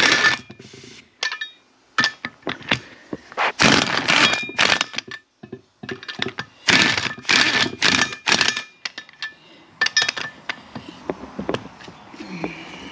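A 3/4-inch impact gun hammering in several short bursts, with clicks and clinks between them, as it runs nuts down onto the hub studs in a cross pattern to seat a new brake rotor.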